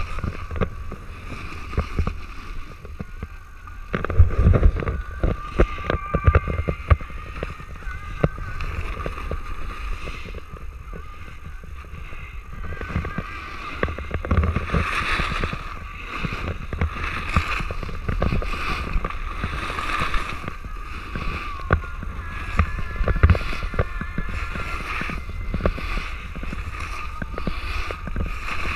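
Snowboard edges sliding and scraping over hard-packed snow, with wind rushing over the microphone of a camera carried by a following rider. Irregular knocks and clatters of board chatter, thickest about four to seven seconds in.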